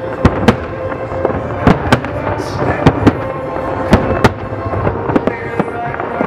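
Fireworks display: aerial shells bursting with sharp bangs at irregular intervals, roughly one a second, over a continuous rumble and crackle from many shots fired at once.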